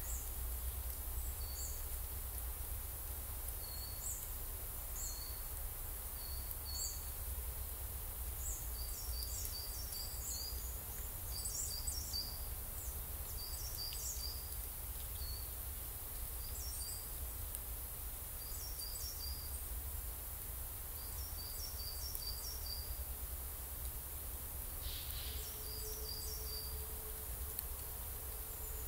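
Small songbirds calling in winter woodland: short, high chirps, often in quick clusters of three or four, repeated every second or two over a steady low rumble.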